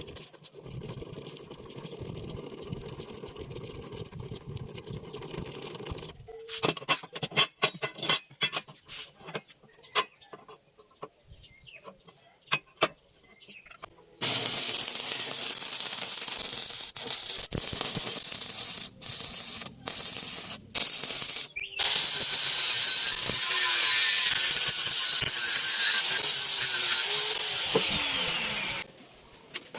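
Angle grinder with a cutting disc running through steel plate: a loud, hissing grind that starts suddenly about halfway in, breaks off briefly a few times, is loudest in the last third, and stops shortly before the end. Before it come a low hum and a run of metal clicks and knocks.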